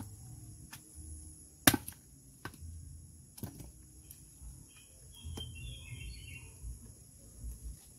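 Wood fire under a cooking pot crackling, with scattered sharp pops, the loudest about two seconds in. A bird chirps briefly around five to six seconds, over a steady high insect hum.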